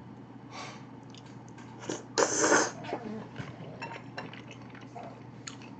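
Close-miked eating of rabokki: a loud slurp of noodles about two seconds in, then chewing, with small clicks of chopsticks against the dishes.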